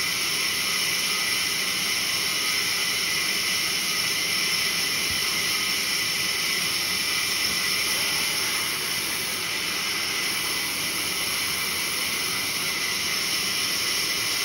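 Large vertical wood band saw running and ripping a log lengthwise, a steady, even hissing noise with no break.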